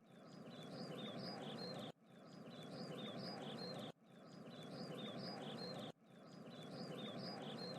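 A short clip of birds chirping over a faint hiss, looped: it fades in, cuts off sharply and starts again about every two seconds, four times over.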